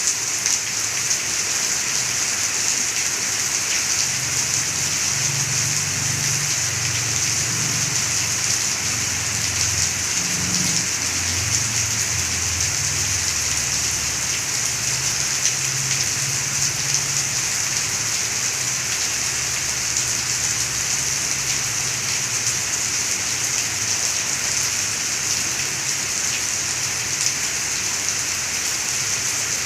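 Heavy rain falling steadily, a dense even hiss. A low rumble rises under it for several seconds in the first half.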